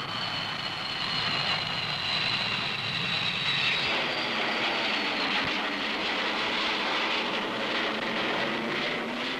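Jet aircraft engine noise. A high turbine whine slowly falls in pitch over the first few seconds, then gives way to a steady, loud jet roar that stops abruptly at the end.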